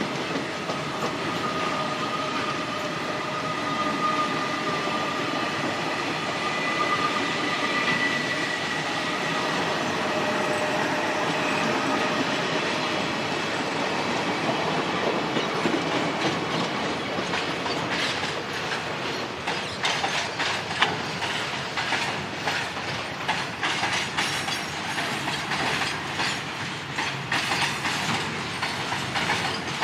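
A train running on the track, with steady rumble and wheel noise and a faint high ringing tone in the first half; from a little past halfway the wheels clatter over rail joints in quick, sharp clicks.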